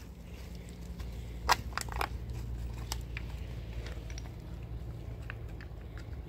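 Footsteps crunching on loose stones and gravel as people walk up a rocky slope, with stones knocking and clicking underfoot, loudest about one and a half to two seconds in, over a steady low rumble.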